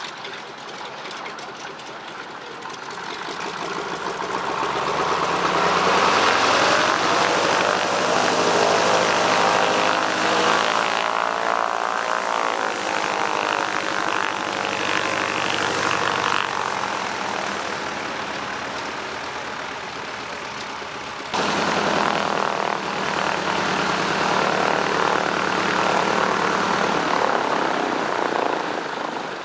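de Havilland Canada Beaver's nine-cylinder Pratt & Whitney R-985 Wasp Junior radial engine and propeller running at taxi power. It grows louder over the first several seconds as the plane comes closer, then jumps up suddenly about two-thirds of the way through.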